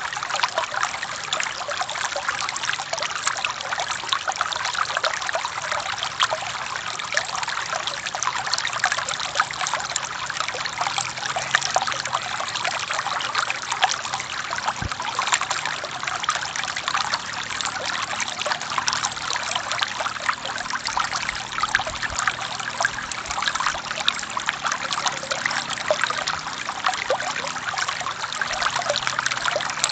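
Forest stream water flowing, a steady rush of trickling made of many small splashes.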